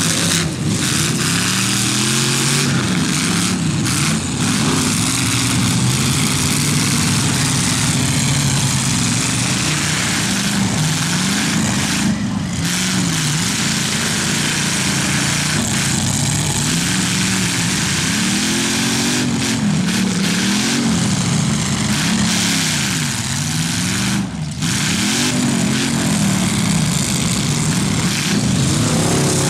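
Several demolition derby car engines revving up and down over and over, overlapping one another, over a dense, steady rushing noise.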